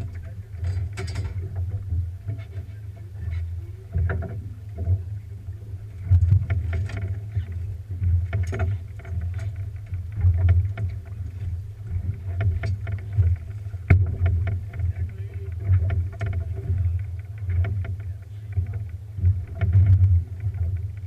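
Boat on the water: a low rumble that swells and fades unevenly, under a faint steady hum and scattered light knocks.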